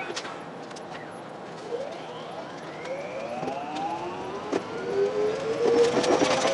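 Traction motors of a 521-series electric train whining as it accelerates away from a station, several tones rising together in pitch, played back at six times speed. Wheel clatter over rail joints builds near the end.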